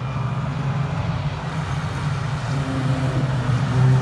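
Engines of several banger racing cars running hard as they lap the oval, a steady mixed drone that grows louder near the end as cars pass close by.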